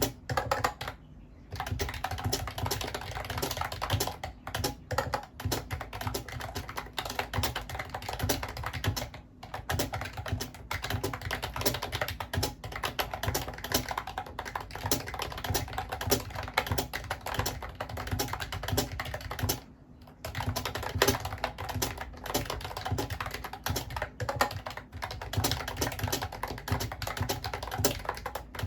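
Continuous fast typing on a Mofii Candy wireless keyboard: a dense run of key clicks, broken by brief pauses about a second in and again just before twenty seconds in.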